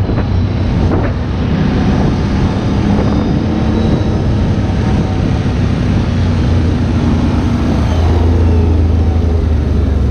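ATV engine running steadily under way, with wind noise on the microphone. The low engine drone grows louder about eight seconds in.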